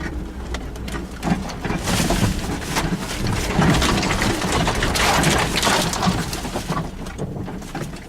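Suzuki Jimny driving slowly over rough off-road ground: a low engine rumble under crunching and rattling noise that swells through the middle and fades near the end.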